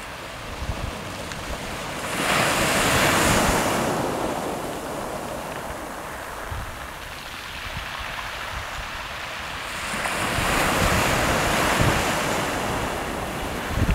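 Small sea waves breaking and washing up over a shingle beach, the rushing hiss swelling twice, about two seconds in and again about ten seconds in. Wind buffets the microphone in light low thumps.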